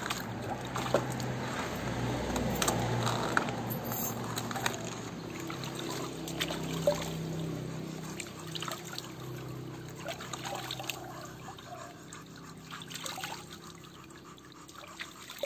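Water trickling and splashing in a plastic basin as a puppy is washed by hand, with small splashes and drips throughout; busiest in the first half, then dying down.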